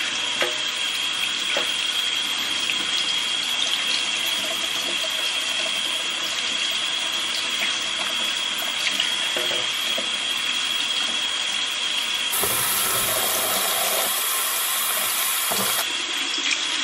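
Kitchen tap running steadily into a stainless steel sink and colander while tomatoes are rinsed by hand under the stream, a steady high tone over the rush of water. From about twelve seconds in, the splashing turns brighter for a few seconds, then settles back.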